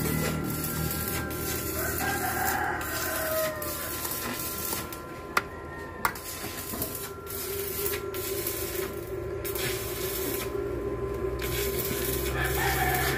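Hands handling wires and terminals in a metal switch box, with two sharp clicks about five and six seconds in, over a steady background hum.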